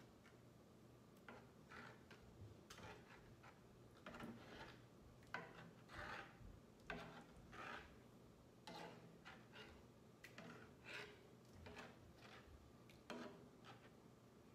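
Utensil stirring and scraping through simmering milk gravy in a cast iron skillet: faint, irregular scrapes about once or twice a second.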